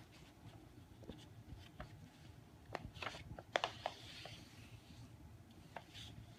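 A sheet of construction paper being folded in half by hand and smoothed flat: faint rustling with a few soft taps and swishes, busiest about three to four seconds in.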